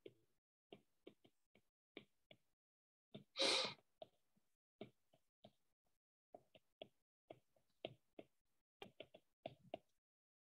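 Stylus tip tapping and clicking on a tablet's glass screen during handwriting: irregular sharp clicks, two or three a second, with one short, louder hiss about three and a half seconds in.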